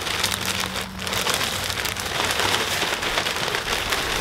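Potting mix pouring out of a plastic bag into a half whiskey barrel planter: a steady gritty rush of falling soil, with the bag crinkling. The rush dips briefly about a second in.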